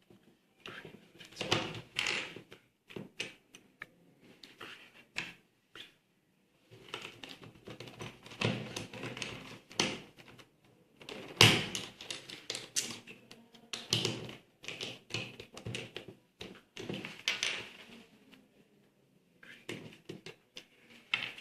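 Plastic 3×3 Rubik's Cube pieces clicking and snapping together as a cube is reassembled piece by piece: irregular sharp clicks with short pauses, the loudest about eleven seconds in.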